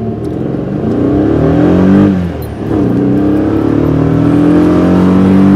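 Air-cooled flat-four engine of a Volkswagen 1303 Beetle accelerating hard, heard inside the cabin. The pitch rises, drops at a gear change about two seconds in, then climbs again and holds high. By the builder's estimate, about 70% of the noise inside the car comes from the carburettor and its filter, and 30% from the exhaust.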